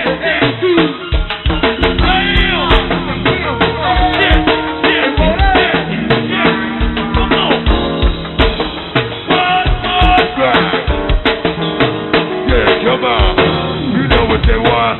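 Live go-go band music: drum kit and percussion keeping a steady beat under sustained keyboard or guitar notes, with some singing. The recording is a dull-sounding PA tape with no treble, which the upload itself calls bad sound.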